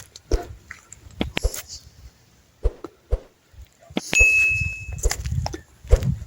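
Irregular knocks and clicks, with one sharp strike a little after four seconds in that leaves a short, clear metallic ring.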